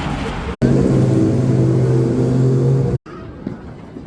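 Short cuts of city street sound: a vehicle engine running with a steady low hum for about two seconds, between a brief rumble of traffic before it and a quieter clip after it.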